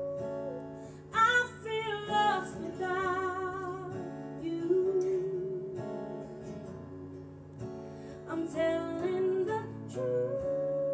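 A woman singing live to an acoustic guitar accompaniment, holding long notes, some of them with vibrato.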